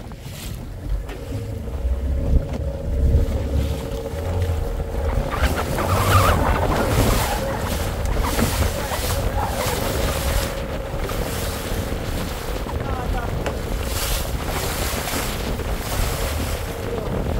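Wooden fishing canoe under way at speed on choppy sea: a steady motor drone under the rush and splash of water along the hull, with wind buffeting the microphone.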